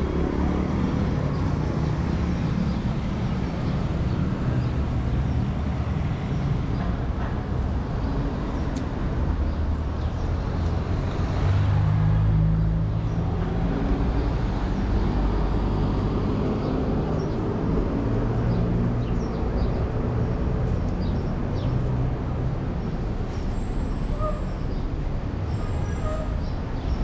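City street traffic: a steady low rumble of vehicle engines running and passing, a little louder about halfway through.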